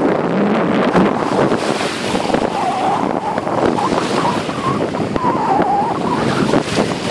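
Wind buffeting the microphone over choppy lake water, with small waves lapping steadily.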